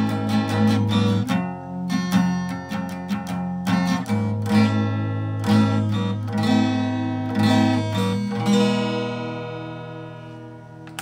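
Acoustic guitar strummed in chords, the strums coming in a steady rhythm. The last chord, about eight and a half seconds in, is left to ring and fades out.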